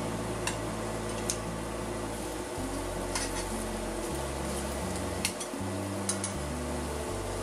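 Marinated beef short ribs (LA galbi) sizzling in a stainless steel frying pan. Metal tongs give a few sharp clicks against the pan as the pieces are turned.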